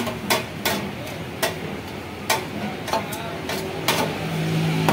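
Metal spatula and knife clacking and scraping on a steel shawarma counter as shredded chicken is tossed and mixed with salad: sharp metal clacks at an uneven pace, roughly two a second.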